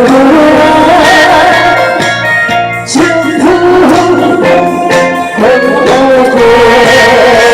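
A pumba performer's amplified singing over a loud backing track, with long held, wavering notes.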